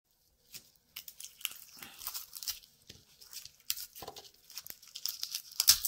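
Dry papery skins of garlic cloves crackling and tearing in irregular bursts as fingers peel them by hand, with the loudest crackle near the end.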